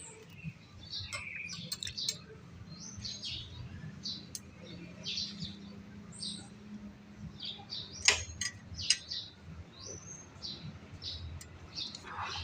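Small birds chirping over and over, with a faint steady low hum underneath and a few sharp clicks or knocks, the loudest two about eight and nine seconds in.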